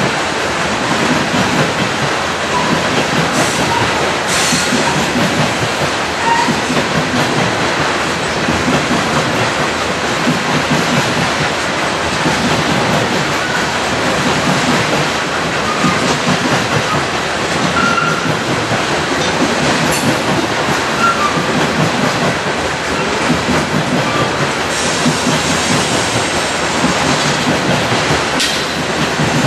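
Loaded coal train's hopper cars rolling steadily past: a continuous rumble and rush of steel wheels on rail, with a few brief high-pitched wheel squeals and several sharp knocks along the way.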